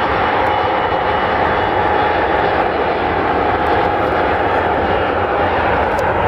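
Twin rear-mounted turbofan engines of a Bombardier CRJ900 regional jet rolling along the runway: a steady, loud jet rush with a faint whine.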